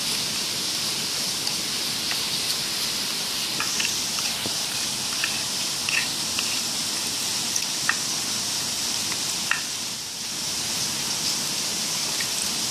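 Plastic spoon stirring sticky clear slime in a plastic container: scattered small wet clicks and squelches every second or two, over a steady background hiss.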